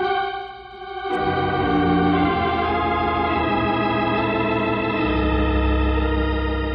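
Organ music bridge marking a scene change in a radio drama: a held chord strikes suddenly, fuller sustained chords with a bass line come in about a second later, and the bass deepens near the end.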